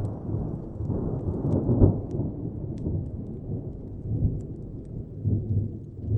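Distant thunder rumbling and rolling, swelling loudest about two seconds in and again near the end. Faint crackles of a wood fire pop sparsely over it.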